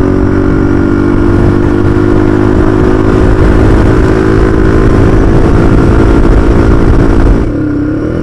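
Honda XLX 250R's single-cylinder four-stroke engine running steadily at highway speed under a heavy rumble of wind and road noise. About seven and a half seconds in, the rumble falls away and the engine note dips as the bike slows.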